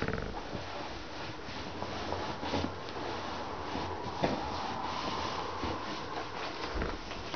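Bedding rustling and rubbing as a quilted bed cover is smoothed and tucked in by hand, with a couple of soft knocks.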